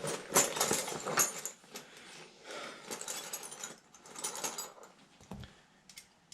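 Hand tools and small metal parts being handled and worked against a furnace's sheet-metal housing: irregular clicks, rattles and short scrapes, busiest in the first half and thinning out toward the end.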